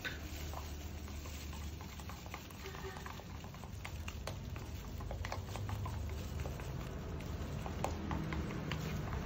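A brush clicking and scraping against a clear plastic tub as goat hair is worked into pink dye: light, irregular taps, several a second for much of the time, over a low steady rumble.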